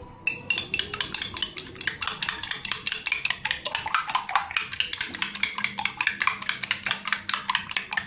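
A fork beating raw eggs in a bowl, the tines clicking rapidly and evenly against the bowl, about six strokes a second.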